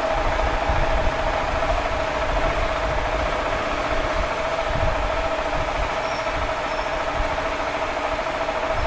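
KTM 690 SMC R single-cylinder motorcycle engine idling steadily, with a constant hum over it.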